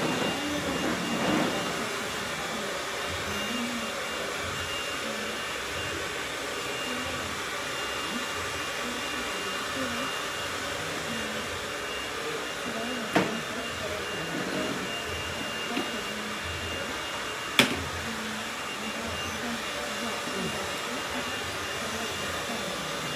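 Steady whooshing noise of a running blower motor, such as a salon hair dryer, with a faint high whine held throughout. Two sharp clicks stand out, about thirteen seconds in and again about four seconds later.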